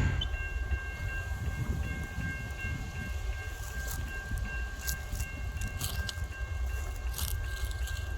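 Train rumbling low and steadily, with steady high ringing tones above it and a few sharp high clicks after the middle.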